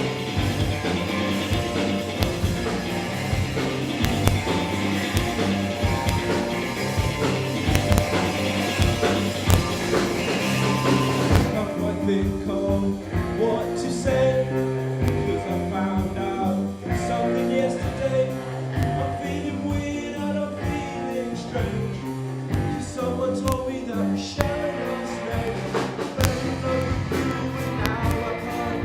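Young rock band playing live: drums, electric guitar, bass and singing. About eleven seconds in the cymbals drop out and the music thins to guitar and bass before building again.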